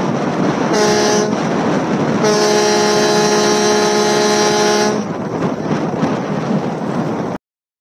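A loud multi-tone horn, a chord of several steady pitches, sounding twice: a short blast about a second in, then a long blast of nearly three seconds. A steady rushing noise continues after it.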